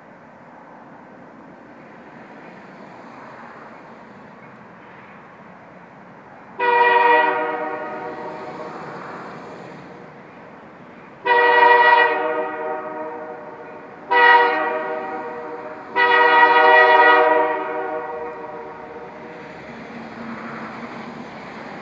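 Nathan K3HA air horn on an EMD GP40-3 diesel locomotive sounding the standard grade-crossing signal: two long blasts, a short one, then a final long one, each echoing away afterward. The low rumble of the approaching diesel runs underneath.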